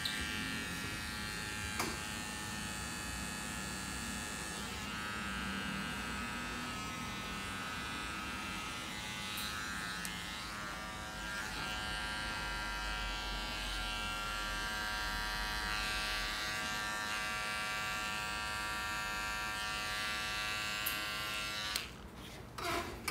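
Electric hair trimmers running with a steady buzz as they clean up the hairline and underneath of a short haircut, stopping near the end.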